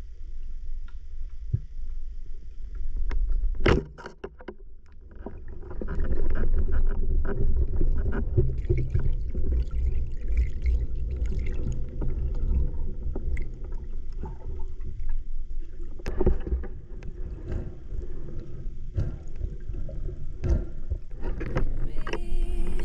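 Underwater noise picked up by a submerged camera: a low, muffled rushing and rumbling of water around a spearfishing diver, with scattered clicks. There is a sharp knock a few seconds in, followed by a quieter couple of seconds.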